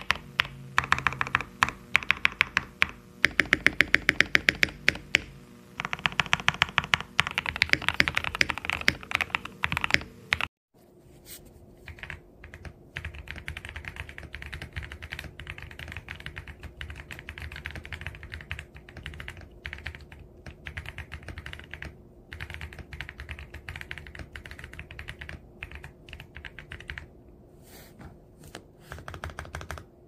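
Typing on mechanical keyboards. For about ten seconds the keys are lubed and filmed SP Star Meteor White switches, typed fast with loud, sharp clacks. After a brief break, a different mechanical keyboard is typed on more quietly, with softer keystrokes.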